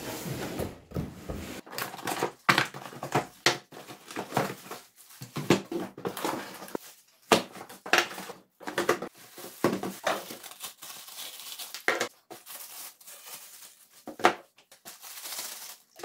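Clear plastic packaging bags crinkling and rustling as vacuum cleaner parts are unpacked by hand, with irregular light knocks as parts are set down on a table.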